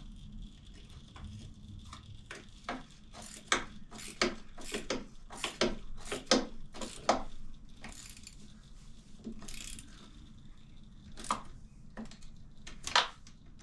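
Metal clicks and clinks of a ratchet working the motorcycle's shift lever bolt as it is tightened back up, a quick run of clicks for the first half, then a few scattered ones.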